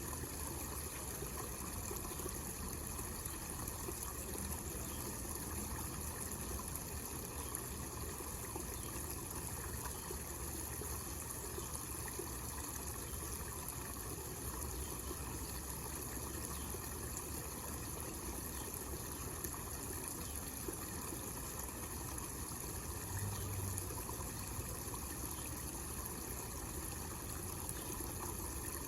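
Small homemade fountain: water falling steadily over miniature waterfalls and trickling into a basin.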